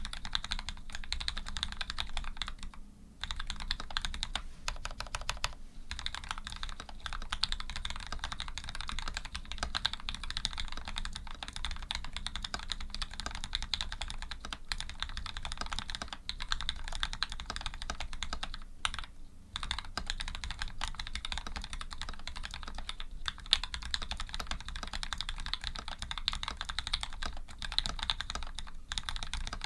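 Rapid, continuous typing on a Canoe v2 custom mechanical keyboard with lubed Gateron Ink switches, an aluminium plate and PBT keycaps, with brief pauses about 3, 19 and 23 seconds in.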